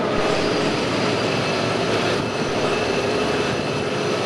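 Steady, loud rumble of a Medellín Metro train running through the station, with a few held whining tones over it.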